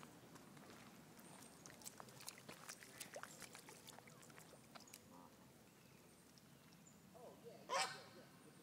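Mostly quiet with faint scattered ticks, then one short, loud call about eight seconds in.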